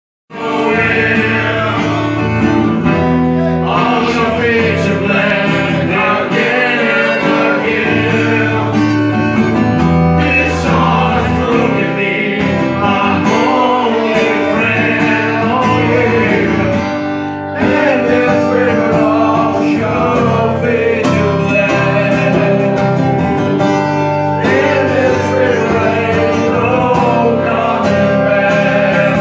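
Acoustic guitar played in chords, with a harmonica playing a bending melody over it; the music drops out for a moment just past halfway, then resumes.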